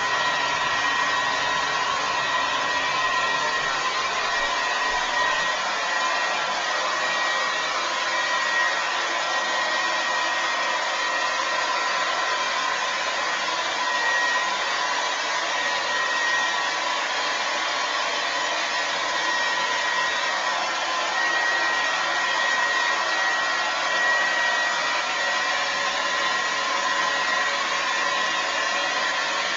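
Remington Shine hair dryer running continuously, a steady rush of air with a constant high whine from its motor.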